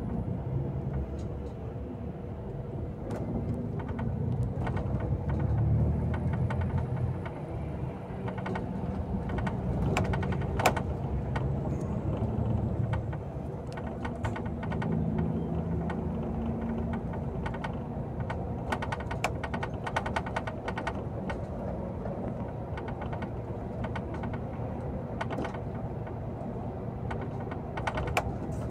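Vehicle engine running while driving, its pitch rising and falling, with scattered clicks and rattles.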